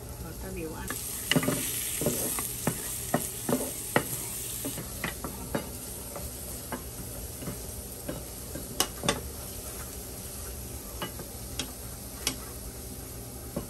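Minced garlic sizzling in hot oil in a frying pan while two wooden spatulas stir and scrape it, with sharp knocks now and then as they strike the pan. The sizzle is strongest for the first few seconds, then dies down.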